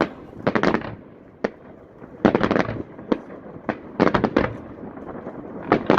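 Fireworks display: shells bursting as sharp bangs that come in quick clusters, about five salvos within a few seconds.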